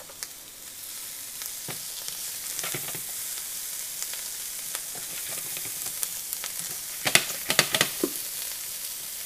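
Turkey sizzling as it browns in a hot frying pan, a steady hiss that grows a little louder about a second in. A spatula scrapes and knocks against the pan now and then, with a quick run of clatters about seven to eight seconds in.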